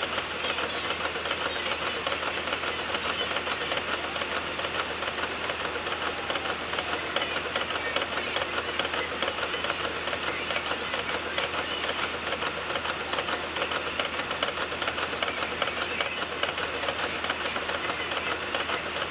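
Optical DVD drive clicking rapidly and steadily as its read head seeks, over the whir of the spinning disc, while it reads program files from a boot DVD.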